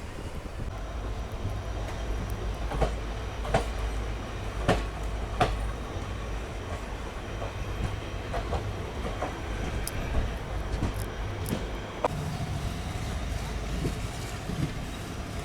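Passenger train running along the track: a steady low rumble with irregular sharp clacks of the wheels over rail joints. About twelve seconds in, the low rumble eases.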